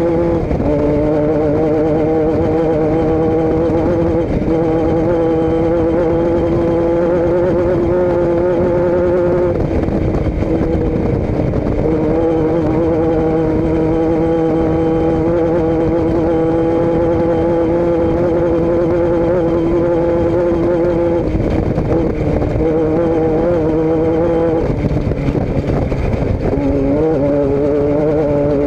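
Vehicle engine running at a steady speed, its pitch shifting slightly a few times.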